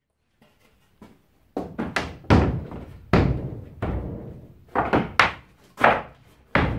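Plywood panels knocked and set down against one another as they are stacked by hand: a series of about ten irregular wooden thunks, starting about a second in.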